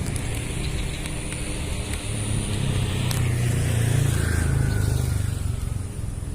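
A passing motor vehicle: a low engine rumble that swells to its loudest about four seconds in and then fades.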